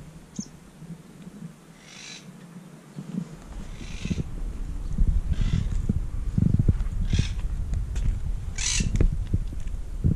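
Wind buffeting the camera microphone in gusts, a rough low rumble that grows much stronger a few seconds in. About five short crisp rustles sound over it, roughly every second and a half.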